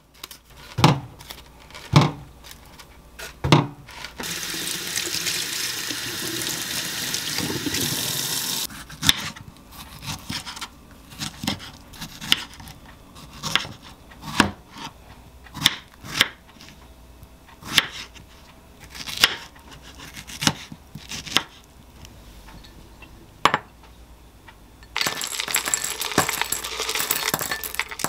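Kitchen handling sounds: a few clatters of a plastic strawberry punnet, a few seconds of running water, then a kitchen knife cutting through strawberries and knocking on a wooden board, about a dozen strokes roughly once a second. Near the end, chocolate granola rattles as it is poured into a small glass bowl.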